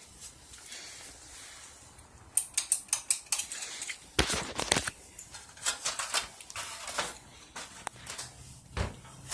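Irregular sharp clicks and knocks, some in quick runs, beginning about two seconds in, over a faint low steady hum.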